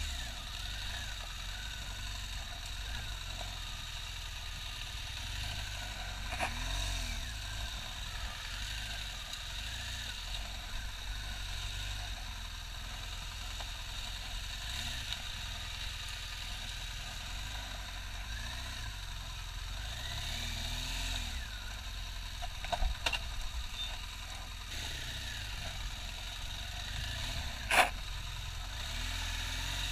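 BMW R1200GS boxer-twin engine running at low revs over rough single track, the throttle easing on and off. A few sharp knocks come about three-quarters of the way through, and one louder, sharp knock near the end.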